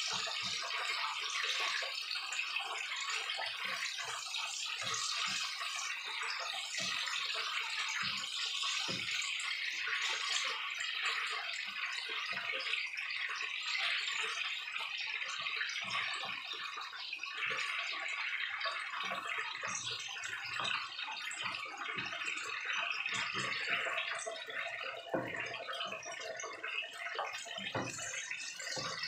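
Food sizzling in hot oil in a non-stick frying pan as it is stir-fried, a steady hiss throughout. The spatula clicks and scrapes against the pan again and again.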